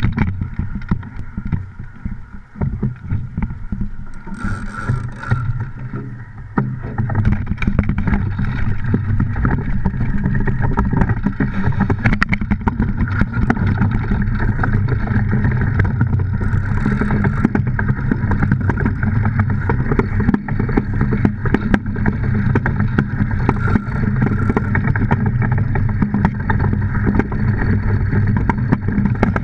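DN iceboat's steel runners rumbling over the ice with the hull vibrating. The sound is uneven at first, then settles into a loud, steady rumble about six seconds in as the boat runs at speed.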